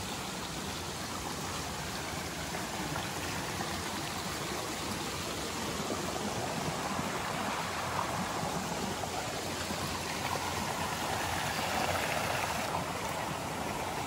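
A river rushing steadily close by, getting a little louder near the end.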